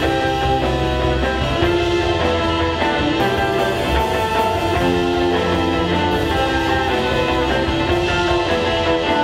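Rock band music with guitar and held keyboard notes.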